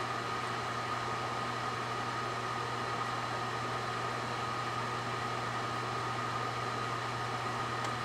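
Microwave oven running: a steady hum and fan whir with a constant high tone, while a string of battery-operated lights burns inside it.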